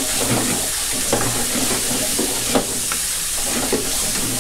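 Shrimp, chicken and shiitake mushrooms frying in seasoning sauce in a stone-coated non-stick wok over high heat, sizzling with a steady hiss, while a wooden spatula stirs and scrapes the pan in quick short strokes.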